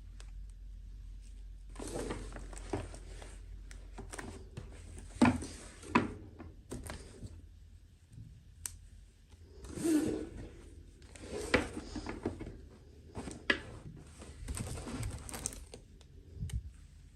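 Toy packaging handled during an unboxing: irregular rustling of plastic and cardboard with several sharp clicks and knocks.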